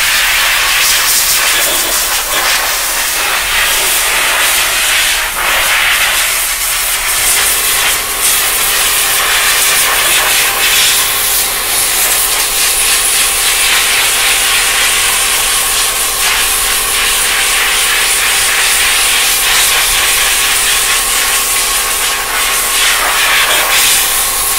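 Compressed air hissing steadily from a hand-held blow gun played over an aluminium radiator's fins, blowing out water to dry the core after washing. A steady hum joins in about seven seconds in.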